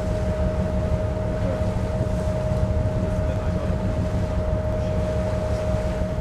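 Steady low engine rumble of a ship under way, with a constant whine held on one pitch above it and a wash of wind and water noise.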